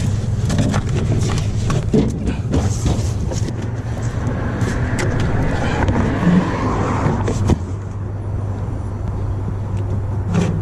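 A vehicle engine runs steadily under a scatter of knocks and clatter in the first few seconds. A rushing noise swells from about four seconds in and cuts off sharply at about seven and a half seconds.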